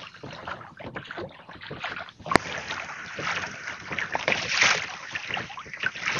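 Water sloshing and splashing around a fishing kayak, with small knocks from handling in the boat and one sharp click about two and a half seconds in; wind on the microphone.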